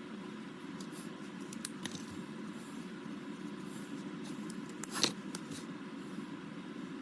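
Small clicks and taps from handling alcohol markers and paper at a craft table, over a steady low room hum; one sharper click about five seconds in.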